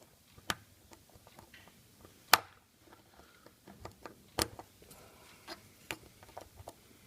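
Sharp, irregular clicks and taps of a small tool working at the little black retaining clip on the back of a Kwikset SmartKey lock cylinder, pushing it up to remove it. The loudest click comes a little over two seconds in.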